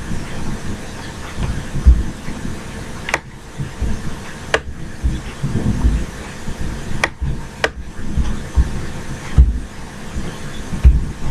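Four sharp single computer-mouse clicks, two close together at a time, over a low, uneven rumble with irregular thumps.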